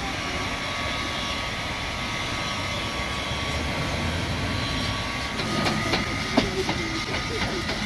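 Steam locomotive standing with steam up: a steady hiss and hum of the engine at rest, with a faint high steady tone. A few sharp knocks come near the end.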